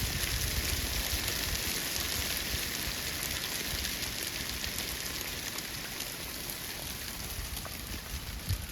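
Hail falling steadily: a dense hiss of small ice pellets striking the ground, full of fine ticks.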